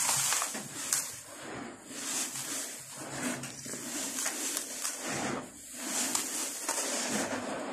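Dry, dusty dirt being crushed and crumbled by hand, with gritty crunching and rustling that swells and fades about once a second.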